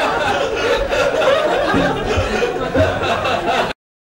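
A room of people laughing and chuckling. The sound cuts off abruptly near the end into about a second of dead silence, a dropout in the recording.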